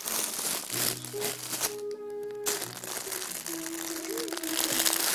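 A simple electronic melody of plain held notes from a baby's activity play gym, with close rustling and crinkling from fabric and toys handled near the microphone.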